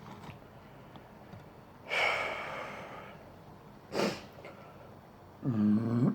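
A person's breath sounds: a long exhale about two seconds in, a short sharp sniff about four seconds in, then a brief voiced grunt near the end.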